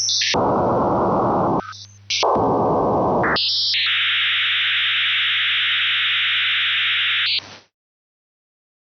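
AM radio being tuned: bursts of static break off twice into short gaps where a low steady hum is left. From about three and a half seconds a steadier, higher-pitched hiss holds until it cuts off suddenly a little over a second before the end, leaving silence.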